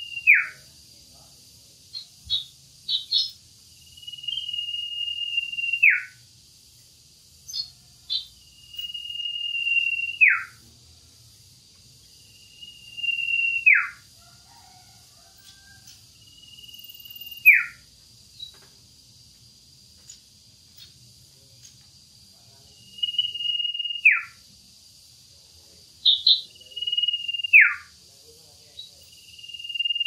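Male common iora (cipoh) calling: a long high whistle held steady for one to two seconds, then dropping sharply in pitch at its end. The call repeats about seven times, every few seconds, with a few short high chirps in between.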